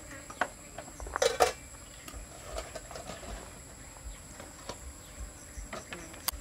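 Glass bottle, small glasses and dishes being set down and handled on a wooden table: a few knocks and clinks, the loudest cluster about a second in and a sharp click near the end. A steady high insect drone runs underneath.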